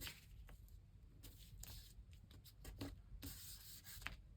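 Faint rustling and rubbing of paper being handled and pressed down, with a few small taps and clicks.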